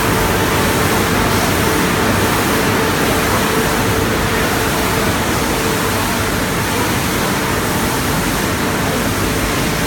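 Car wash machinery running, a steady loud rush of air with a constant mid-pitched hum underneath.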